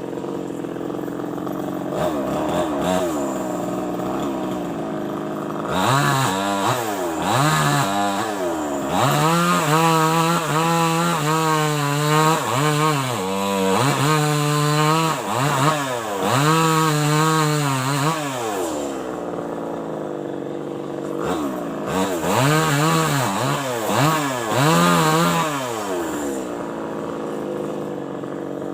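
New West 588 two-stroke chainsaw running at low revs, then revved up and down over and over from about six seconds in as it cuts into teak wood. It drops back to low revs for a moment, revs hard again for a few seconds, then settles near the end.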